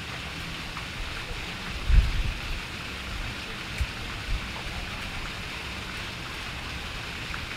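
Steady hiss of fountain water falling and splashing, with a few low thumps on the microphone, the loudest about two seconds in.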